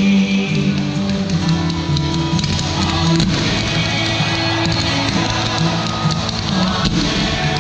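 Music with guitar, held notes over a bass line.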